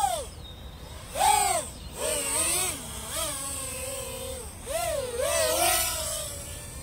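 Micro FPV quadcopter's tiny brushless motors (Happymodel EX1102 9000KV) whining, the pitch swooping up and down in repeated bursts as the throttle changes. It is loudest about a second in and again around five seconds in.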